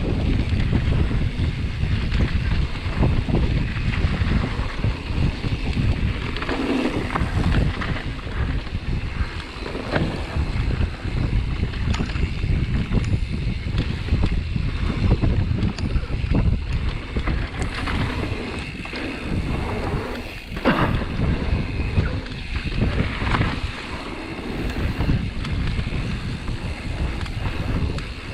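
Heavy wind buffeting on the microphone over tyre roar and bike rattle from a mountain bike riding fast down a dirt flow trail, with scattered knocks from bumps.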